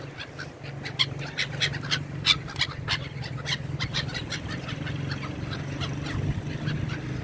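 A flock of seabirds calling with many short, sharp cries that overlap, thickest in the first few seconds and thinning later, over a steady low hum.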